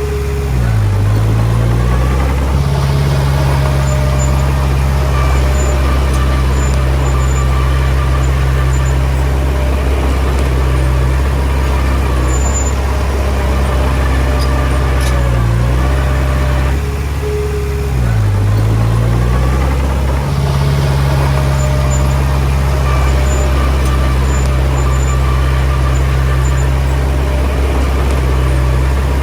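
Komatsu D20P bulldozer's diesel engine running steadily. Its pitch dips and recovers about a second in and again around eighteen seconds in, as the load on it changes.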